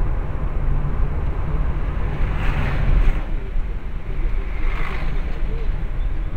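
Steady road and engine rumble inside a moving car, picked up by a dashcam's built-in microphone. Two brief swells of hiss come about two and a half seconds in and again near five seconds.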